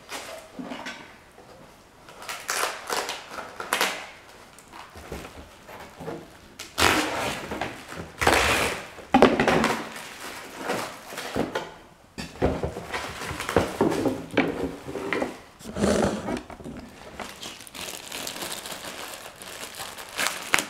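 Plastic packaging crinkling and rustling in irregular bursts as a laptop's AC adapter and its cord are unwrapped.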